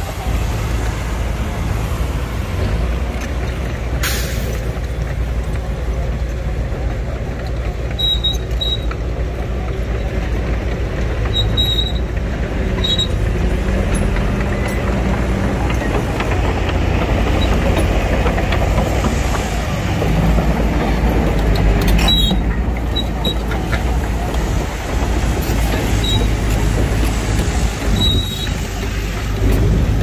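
Heavy earthmoving machinery at work: bulldozer and dump-truck diesel engines running with a steady low drone, with a few sharp knocks and several short high-pitched squeaks.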